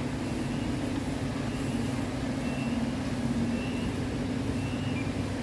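Steady low hum of an idling engine or machinery, with a few faint short high beeps now and then.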